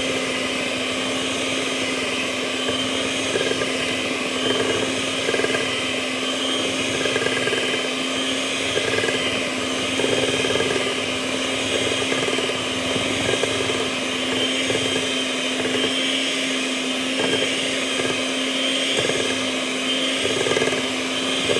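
Electric hand mixer running steadily, its beaters churning cake batter in a bowl: an even motor hum with a churning, swishing noise under it.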